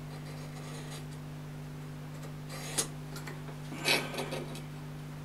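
Two short scrapes of a marking tool drawn across 10 mm steel plate, one about three seconds in and a slightly longer one about a second later, over a steady low hum.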